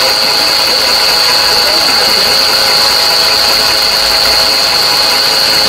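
Volkswagen Polo 4 engine running with an abnormal mechanical noise: a steady high-pitched whine over a busy mechanical clatter, a noise whose source is not yet identified.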